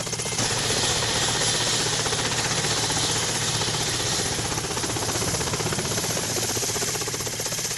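Helicopter in flight: fast, even rotor chop over a hiss of turbine and air noise, getting louder about half a second in.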